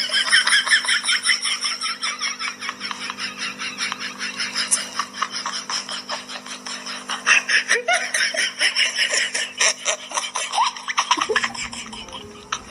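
Long, unbroken run of laughter made of rapid, high pulses, stopping abruptly near the end.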